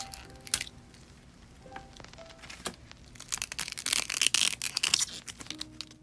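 Plastic packaging being handled: a few sharp clicks and taps, then about two seconds of dense crackling as plastic film or wrapping is torn or peeled, starting a little past halfway.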